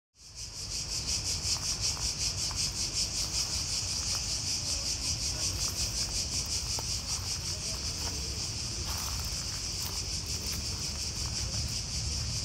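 Cicadas singing in chorus: a loud, high, even buzz that pulses about four times a second. It fades in from silence within the first half second.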